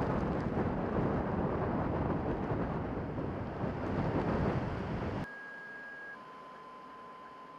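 Gusting wind buffeting the microphone in a snowstorm, a loud low rumble that cuts off abruptly about five seconds in. After it comes a faint steady electronic tone that steps down to a lower tone about a second later.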